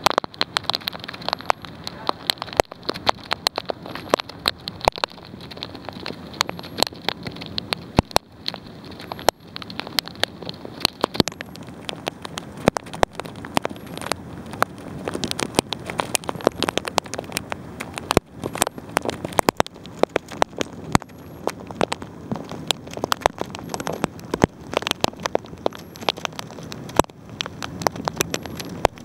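Hailstorm: steady heavy rain with dense, irregular sharp clicks of hailstones striking the window and nearby surfaces.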